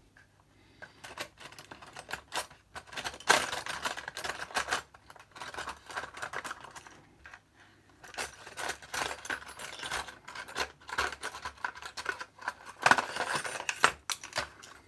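Small metal hand tools clicking and clinking against each other while being rummaged through in search of one, in uneven clusters with quieter pauses near the start and about six to eight seconds in.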